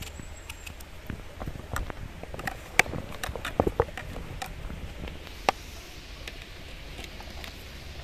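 Irregular taps and knocks of peeled eggplant strips and a paring knife being handled in a plastic bowl. The sharpest knock comes a little under three seconds in, with a small cluster soon after and one more knock about halfway through.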